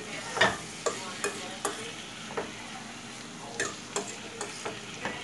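Beef strips and broccoli sizzling in a steel frying pan while being stirred, with about ten sharp knocks and scrapes of the utensil against the pan.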